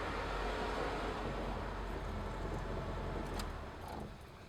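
BMW 2002's four-cylinder engine on twin Dellorto DHLA40 carburettors idling while losing its idle, then switched off a little over three and a half seconds in and dying away.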